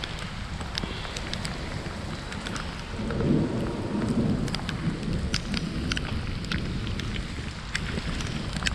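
Heavy rain: a steady hiss with many sharp raindrop clicks close to the microphone, over a low rumble that swells louder about three seconds in.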